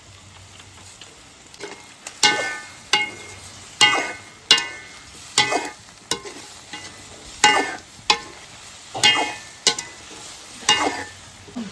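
A metal spoon stirring in a metal cooking pot, clinking against it about a dozen times in an uneven rhythm, each clink ringing briefly.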